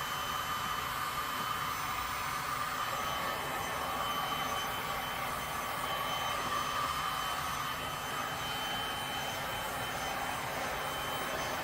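Heat gun running steadily, blowing hot air over wet resin: a constant rush of air with a faint whine that wavers slightly in pitch.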